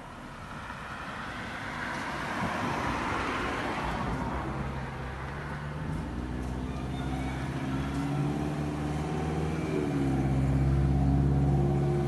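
Road traffic: a car passing with tyre noise swelling over the first few seconds, then a vehicle engine running with a steady low hum that shifts in pitch and grows louder toward the end.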